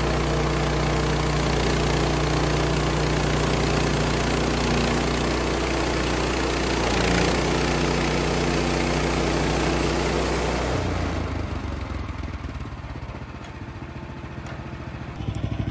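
Sawmill engine running steadily, then throttling down to a slower, quieter idle about eleven seconds in.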